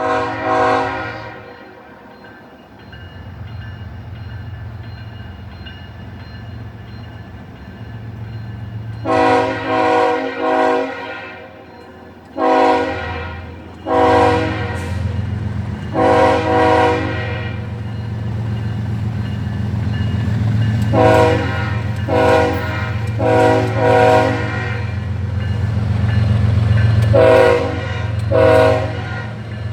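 Diesel locomotive air horn sounding several notes at once: one blast at the start, then after a pause a long string of short blasts, mostly in twos and threes. Under it the locomotive's diesel engine runs steadily, growing louder from about halfway through.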